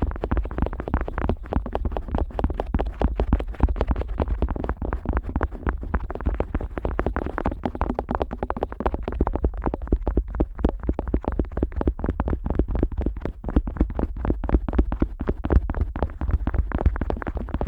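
An otoscope rubbing, pressing and tapping on the rubber outer ear of a Neumann KU100 dummy-head microphone: a rapid, unbroken run of close, dull scraping and clicking strokes over a low handling rumble.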